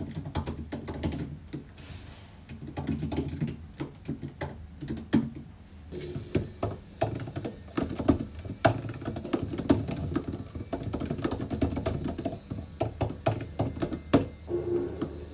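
Typing on a computer keyboard: quick, irregular key clicks with a few short pauses.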